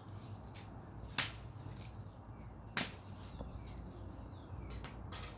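Scattered sharp clicks and ticks of wire and flexible conduit being handled as 10 AWG wires are worked through the conduit, with two louder clicks about a second and nearly three seconds in and a few more near the end. A steady low hum sits underneath.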